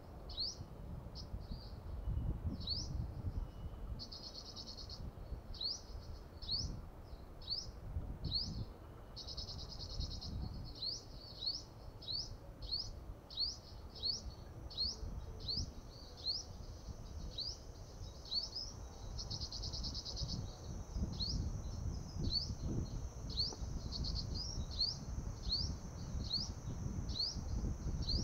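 Caged decoy sunbird calling steadily: a long series of short, high, rising notes, about two a second. An insect buzzes in patches, with a low rumble of wind underneath.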